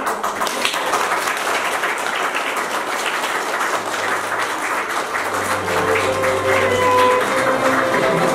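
A crowd of guests applauding. About halfway through, music with held notes comes in beneath the clapping.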